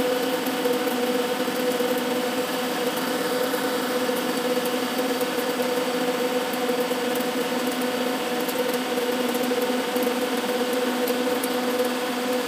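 Metal lathe running steadily under power feed while the turning tool cuts along a steel tube: a constant gear hum with a steady whine, over the hiss of the cut. The cut runs without chatter.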